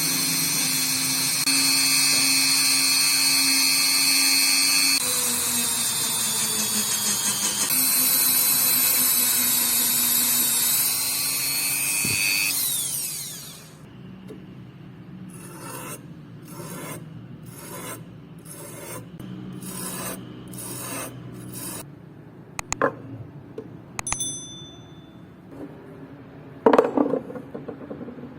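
A power tool runs steadily at speed, then spins down over about a second, falling in pitch. It is followed by repeated rubbing or filing strokes at about two a second on metal, with a few sharp ringing metal knocks near the end.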